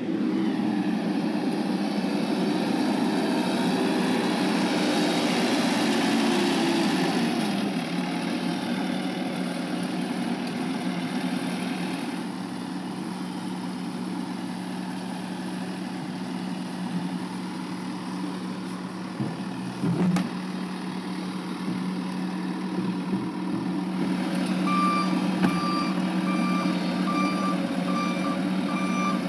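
Engine of a compact front-bucket utility vehicle running, its pitch dropping after about seven seconds and then holding a steady hum, with a single knock about twenty seconds in. Near the end its reversing alarm starts beeping at an even pace.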